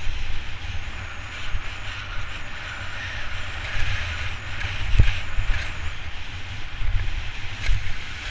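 Wind buffeting the microphone of a body-mounted action camera during a ski descent, with skis hissing through loose snow. A single sharp knock about five seconds in.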